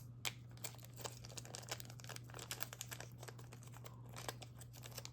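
Steel handcuffs being handled and fiddled with while double locked: a faint, irregular run of small clicks and light metal rattles.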